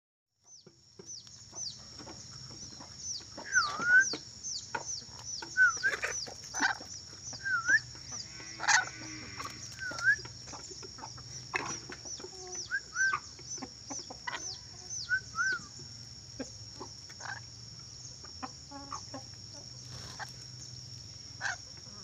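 Chickens clucking, with scattered short, sharp calls. Over them runs a steady high-pitched whine laced with rapid, repeated chirps, starting about half a second in.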